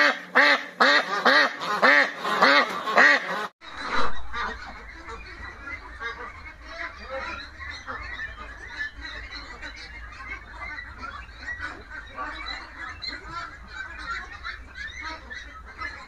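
A loud run of evenly spaced honking calls, about two a second, cuts off abruptly; then a flock of Peking ducks in a pen calls over one another in a dense, overlapping chatter over a steady low rumble.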